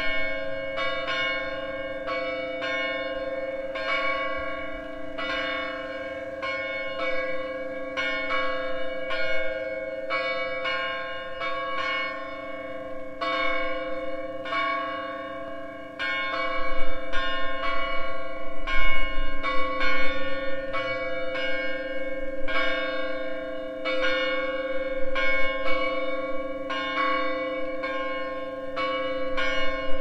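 Church tower bells pealing in a steady run of strikes, a little more than one a second, each note ringing on under the next. A low rumble joins about halfway through.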